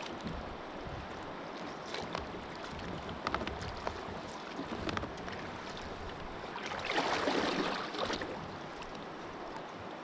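Water and wind noise around a kayak, with scattered light knocks and clicks, and a louder rush of noise lasting about a second, some seven seconds in.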